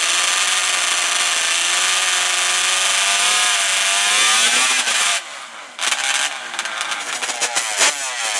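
A racing ATV engine held at high revs, cutting out briefly about five seconds in, then coming back as rapid popping revs.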